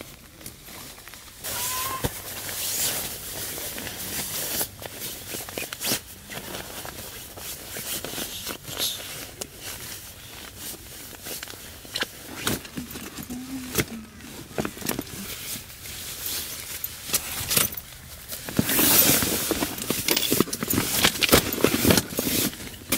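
Rustling and crinkling of nylon camping gear and bags being packed by hand, with scattered clicks and handling knocks. The loudest, densest crinkling comes near the end, as a waterproof roll-top bike pannier is handled.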